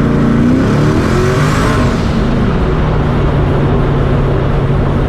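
Twin-turbo LSX V8 of a 1969 Camaro running under way: the engine note climbs as it accelerates for about the first two seconds, with a faint high whistle rising and falling, then settles to a steady pitch.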